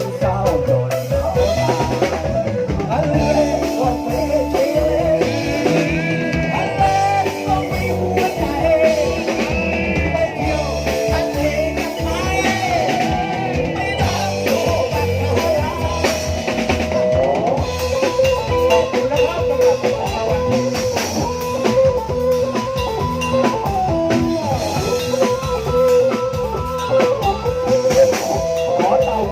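Thai brass band (traewong) playing a tune over a steady drum-kit beat with rimshots.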